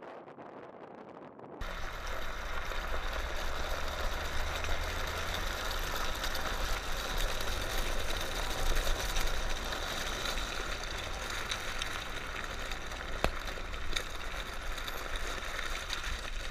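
UAZ-452 van driving over a gravel riverbed, heard from a camera mounted on its side: a steady low engine drone with tyre and wind noise and a few sharp stone clicks. It comes in suddenly about a second and a half in, after a quieter stretch.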